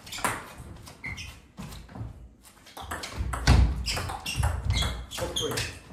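Table tennis ball clicking back and forth off bats and table in a fast rally, echoing in a large hall. Heavy footfalls thud on the floor about halfway through as the players move.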